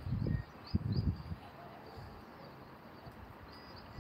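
Outdoor background with faint short bird chirps, and a few low rumbling bumps in the first second and a half.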